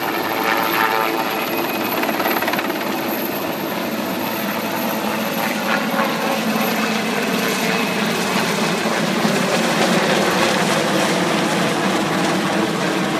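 Sikorsky S-61A-4 Nuri helicopter flying overhead, its main rotor and twin turboshaft engines running with a steady, loud drone.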